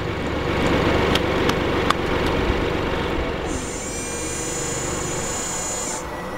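A high mechanical whir, like a small motor, from about three and a half seconds in until it cuts off near the end, over a noisy rumble with a few sharp clicks in the first two seconds.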